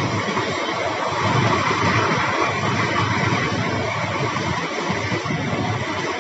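Indian Railways express passenger coaches rolling past close by: a steady rumble and rattle of steel wheels on the rails, with frequent irregular knocks.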